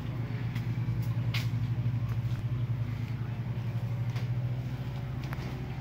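A steady low mechanical hum, even and unchanging, with a few faint light clicks.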